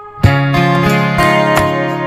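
Background guitar music, plucked notes and chords. After a brief dip at the start, a strong note comes in about a quarter second in, and further notes follow.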